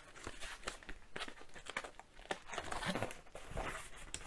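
A brown paper mailer being opened by hand: irregular crinkling and tearing of the paper.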